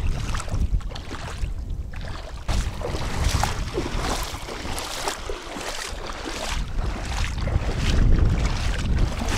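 Wind buffeting the microphone with a heavy low rumble, over irregular splashing of feet wading through shallow water.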